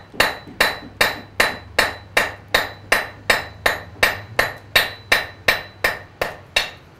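Blacksmith's hand hammer striking a red-hot nail rod on the anvil face in a steady rhythm, about two and a half blows a second, each with a short metallic ring. This is the smoothing of the corners on a freshly drawn-out nail point. The blows stop just before the end.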